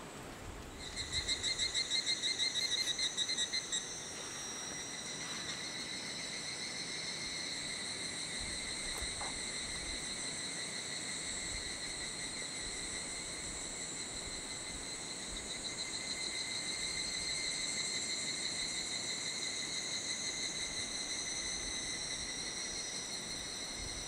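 Insects trilling in chorus: a louder, fast-pulsing trill from about one to four seconds in, then a steadier high trill that carries on.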